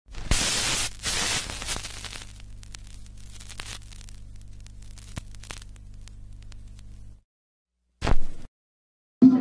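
Vinyl record surface noise: hiss and crackle with scattered clicks over a steady low turntable hum, the hiss loudest in the first two seconds. It cuts off suddenly about seven seconds in, and a brief burst of noise follows a second later.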